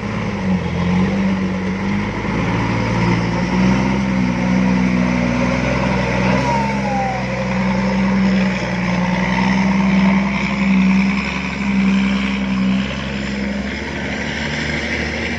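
Six-wheel truck's diesel engine running hard under load as it climbs out of a pit, its pitch wavering slightly but holding steady.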